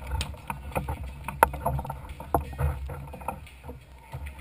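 Beach volleyball rally: sharp slaps of hands striking the ball, starting with the jump serve and loudest about a second and a half in. A steady low wind rumble on the microphone runs underneath.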